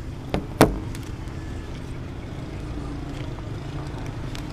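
Two sharp knocks in quick succession about half a second in, the second louder, over a steady low rumble of road traffic.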